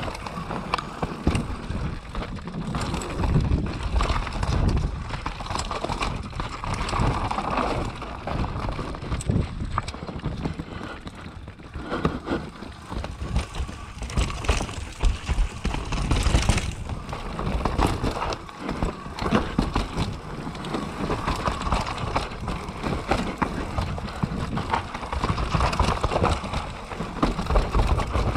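Mountain bike riding down a rough trail: the tyres run over dirt and rocks while the bike clatters with irregular knocks throughout, and wind rumbles on the microphone.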